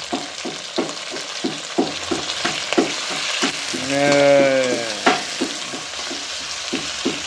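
Curry ingredients frying and sizzling in hot oil in a pan while a utensil stirs and scrapes through them in repeated short strokes. About four seconds in there is a brief hummed voice.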